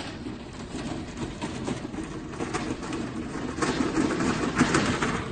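Aluminium two-wheeled hand cart rattling as it is pushed over grass, getting louder as it comes closer and loudest near the end.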